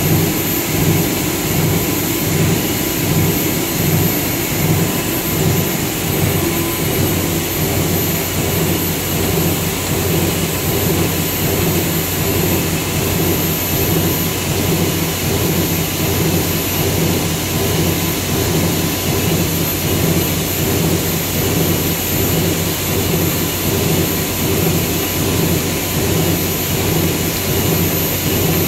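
PP meltblown fabric production line running: a loud, steady rush of blower and motor noise over a constant low hum, with a thin high whine above it.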